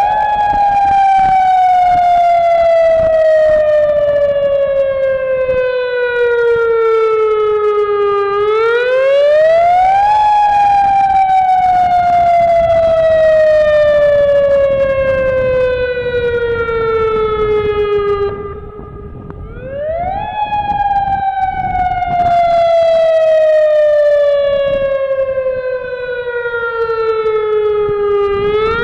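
Civil-defence warning sirens sounding an earthquake alert for a drill. They wail up and down: each rise takes about two seconds and each slow fall about eight, so the cycle repeats roughly every ten seconds. The sound drops briefly before the second rise.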